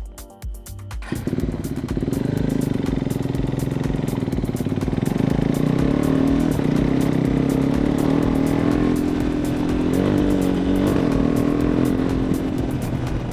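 KTM motorcycle engine getting loud about a second in and then running steadily under way, with a brief dip and rise in pitch around ten seconds in.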